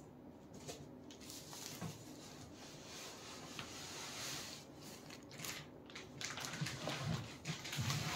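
Large corrugated cardboard box being handled: flaps rustling and scraping as it is pulled open and tipped over, with several dull thumps near the end as the box is laid flat.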